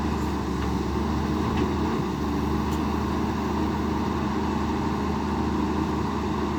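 Heavy machine's engine running steadily at a constant speed, an even low hum with no revving or stops.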